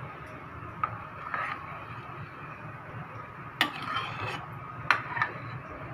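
Metal ladle clinking and scraping against a metal pot while skimming foam off boiling dal: a few sharp clinks, with a longer clatter about three and a half seconds in.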